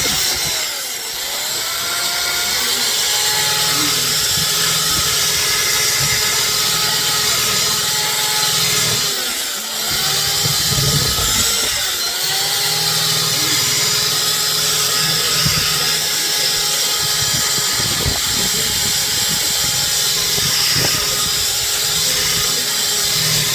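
A power tool motor running steadily with a grinding or abrading noise. Its pitch dips and recovers several times, as a motor does when it is pressed into the work.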